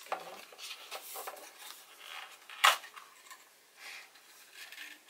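A small cardboard box and its inner packaging being handled and opened by hand: rustling, rubbing and light taps of card as a small plastic device is lifted out, with one sharp knock a little past halfway.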